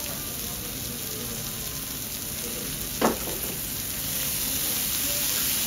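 Thin slices of beef sizzling steadily on a hot teppanyaki griddle. A short sharp sound cuts in about three seconds in, and the sizzle grows a little louder about four seconds in as lemon juice is squeezed over the meat.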